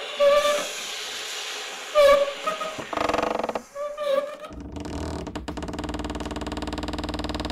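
Soprano saxophone and trumpet playing short, breathy, bending notes over airy hiss, with a buzzy pulsing stretch about three seconds in. About four and a half seconds in, a steady, pulsing mechanical rumble takes over: the windmill noises used in the sound installation.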